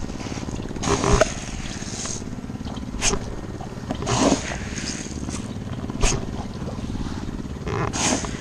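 A small engine runs steadily, its hum unchanging, with about five short rustling scuffs spread a second or two apart.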